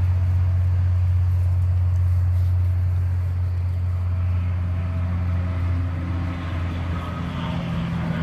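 Steady low mechanical hum of a running motor, strong and even, with a fainter higher hum joining about halfway through.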